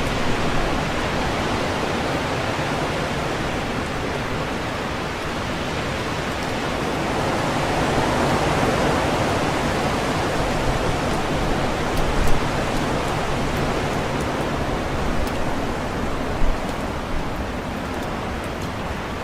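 Strong wind rushing through tree leaves, a steady noise that swells in the middle and eases off again. A couple of brief sharp ticks stand out about twelve and sixteen seconds in.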